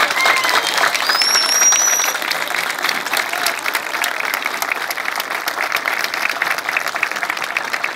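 Crowd applauding and clapping steadily at a political rally, with a short rising whistle about a second in.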